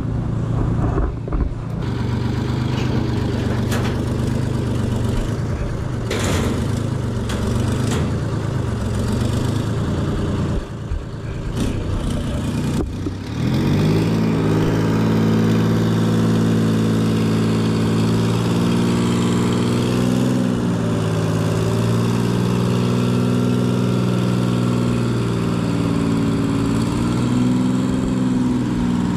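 Clark Michigan wheel loader's diesel engine idling, with a few sharp clanks in the first half. About halfway through it grows louder and its pitch rises and falls as the loader works under load, lifting and carrying a heavy generator hung from its bucket.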